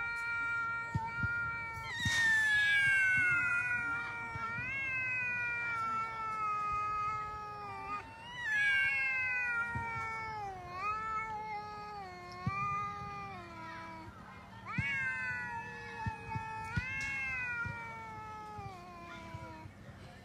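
Cats yowling at each other in a face-off: long, drawn-out wavering howls, each one rising and then sliding down in pitch, following one another almost without a break. These are the threat calls of two cats squaring up before a fight.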